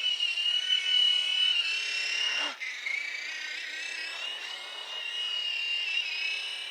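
Small electric remote-control helicopter's motor and rotor whining at a high pitch. About two and a half seconds in it dips briefly, then carries on a little lower and quieter, wavering slightly in pitch.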